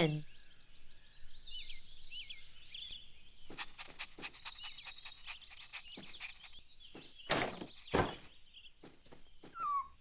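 Cartoon yard ambience of twittering birdsong, then a few knocks, the two loudest about seven and eight seconds in, as the wooden name sign falls off the puppy's doghouse. Short rising whimpers from the puppy near the end.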